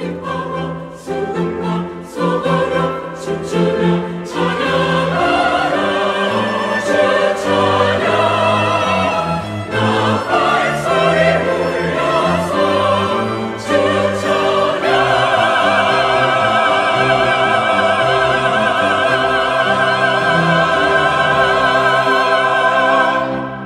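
A mixed church choir sings a Korean choral anthem in full voice, accompanied by piano and strings. About 15 seconds in it reaches a long final chord, held for about eight seconds, that cuts off just before the end.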